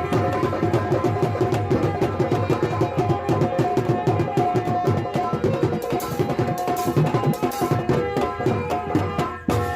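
Instrumental interlude of Indian folk stage music: hand drums played in fast, dense strokes under a held melody line, without singing.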